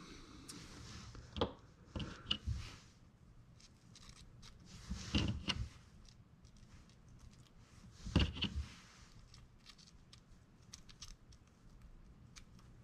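Small clicks and clacks of baitcasting reel parts being handled and fitted together during reassembly, in four short bursts with quiet between.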